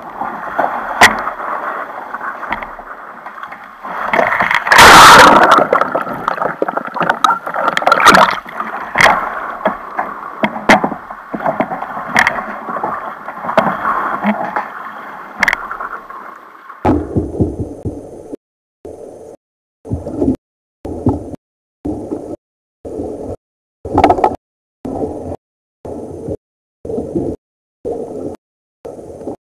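Sea water splashing and sloshing against a sit-on-top kayak and a paddler in a drysuit as he climbs back aboard after a capsize, with loud splashes about five and eight seconds in. From about seventeen seconds the sound changes abruptly into short, regular pulses about once a second, with silence between them.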